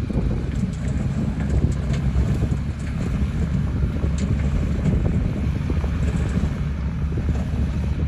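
Dump truck's diesel engine running steadily to power the hydraulic hoist as the bed tilts higher, tipping its load of dirt and rocks, with a few faint ticks from the sliding load.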